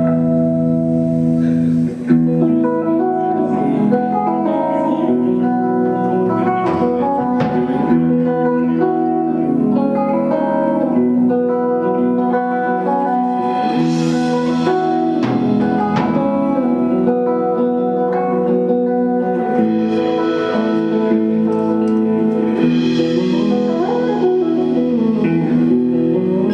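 Live electric guitar, bass guitar and drum kit trio playing jazz-funk fusion, the Stratocaster-style electric guitar leading over bass and drums. Bright cymbal washes swell up about halfway through and again in the last few seconds.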